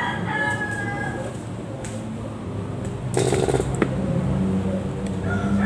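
A rooster crowing in the background, once near the start and again near the end, over a steady low hum. A short rustling noise comes a little past halfway.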